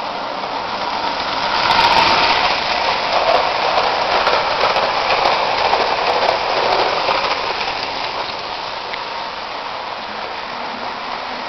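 Lionel 681 turbine locomotive and boxcars rolling past on three-rail O-gauge track, a rattling rumble of wheels on the rails with faint clicks. It swells about two seconds in as the train passes close and fades back after about eight seconds.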